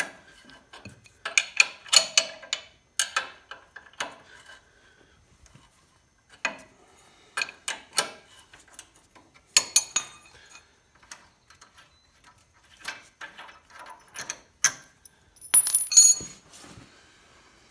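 Metal clicks and clinks of a 3/4-inch box-end wrench working the nut and bolt off the bushing retainer clip on a tractor's three-point hitch arm, coming in irregular clusters with short ringing.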